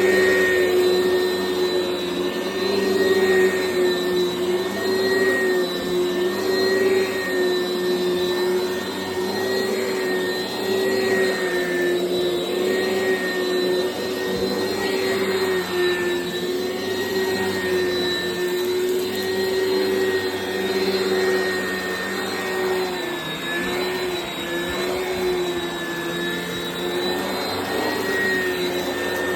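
Oreck XL Commercial upright vacuum cleaner running steadily with a high motor whine. Its pitch wavers slightly and dips briefly a little past two-thirds of the way in as it is worked over the floor.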